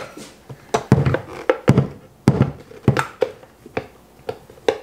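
A quick, irregular run of short taps and knocks, about three a second: a measuring cup scooping oat flour and knocking against the mixing bowl as it is tipped in.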